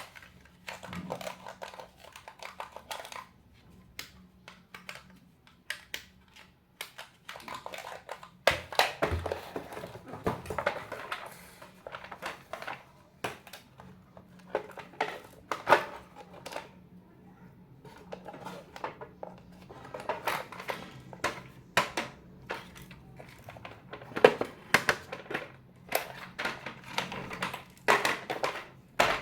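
Plastic toys and packaging being handled: irregular clicks, knocks and crinkling rustles, over a faint steady hum.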